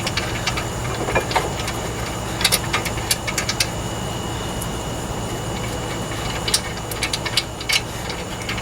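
Scattered sharp metallic clinks of brake parts and tools being handled, over a steady low background hum.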